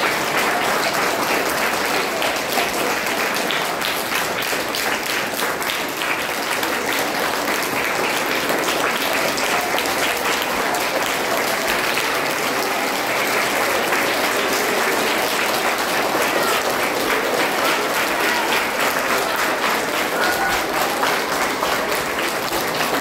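An audience applauding: dense, steady clapping from many hands that keeps up at an even level throughout.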